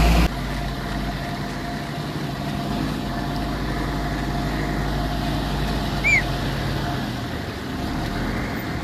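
Diesel engine of heavy earth-moving machinery idling steadily, after a louder run drops off abruptly just after the start. A single short high chirp about six seconds in.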